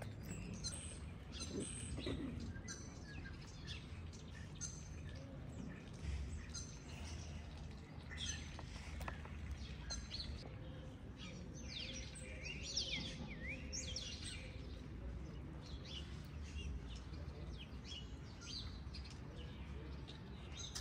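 Small birds chirping and twittering: many short calls and quick rising and falling notes, busiest about the middle, over a low steady rumble.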